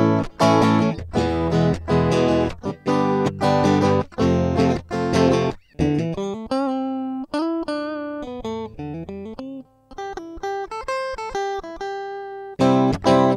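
Fender American Stratocaster electric guitar being played: strummed chords for the first half, then a line of single picked notes, then strummed chords again near the end.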